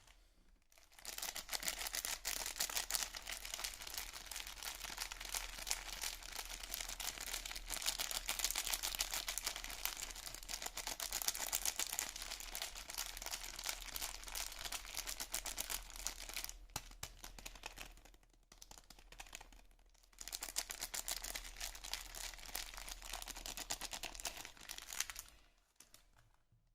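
Soap packaging being handled and unwrapped: continuous crinkling and rustling of wrapper with small crackles and some tearing, easing off briefly about two-thirds of the way through, then resuming before fading out.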